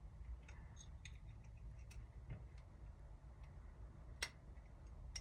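Faint small metal clicks and taps of tweezers and a screwdriver working a top pin and spring into a deadbolt's lock cylinder, a handful of scattered ticks with one sharper click about four seconds in.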